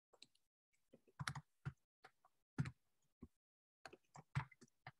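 Typing on a computer keyboard: quiet, irregular keystrokes, some in quick runs of several keys.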